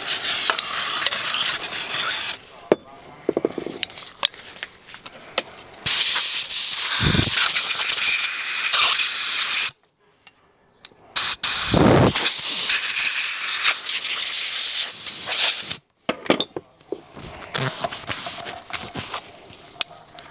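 Aerosol spray can spraying cleaner onto a small engine part, then a compressed-air blow gun blasting the parts clean. There are three blasts of a few seconds each, each starting and stopping abruptly, the first ending about two seconds in, with light clinks of handled parts between.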